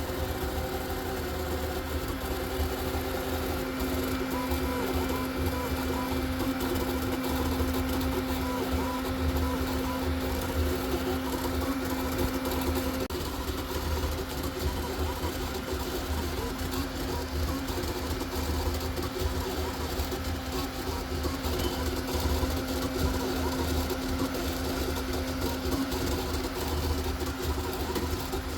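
A fast CoreXZ 3D printer, converted from an Ender 3, printing at around 20,000 mm/s² acceleration: its stepper motors buzz and whine through rapid back-and-forth moves, with steady tones that shift about halfway through.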